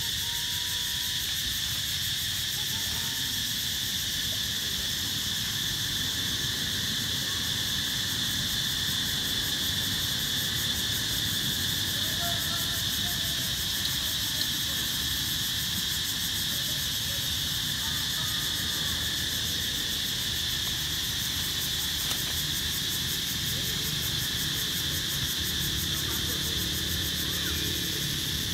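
Steady high-pitched drone of a forest insect chorus, unbroken throughout, with a few faint, brief squeaks now and then.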